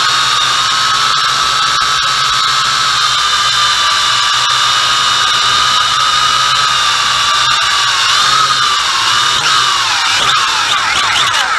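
MJX X101 quadcopter's motors and propellers whining, recorded close by the camera mounted on the drone. The whine holds steady, then falls in pitch near the end as the quadcopter comes down to the ground and throttles off.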